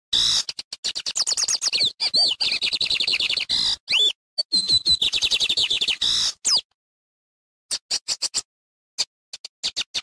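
Male lined seedeater (bigodinho) singing: a fast run of high twittering notes and quick trills for about six seconds, then after a short pause a few brief bursts of notes near the end.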